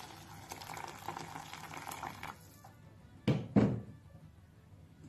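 Water poured into a pan of rice, chicken and vegetables frying in oil, splashing and hissing for about two seconds. Then come two loud thumps close together.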